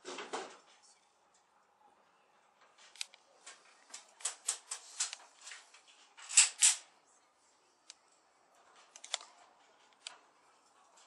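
Irregular light clicks and knocks, loudest as a quick double knock about six seconds in.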